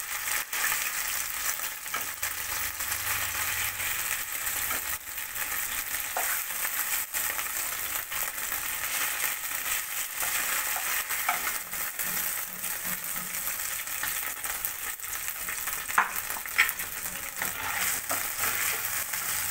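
Bhetki fish steaks sizzling in hot mustard oil in a nonstick kadai, a steady frying hiss, as the fried pieces are lifted out with a spatula. The spatula gives scattered light clicks against the pan, with two sharper knocks a few seconds before the end.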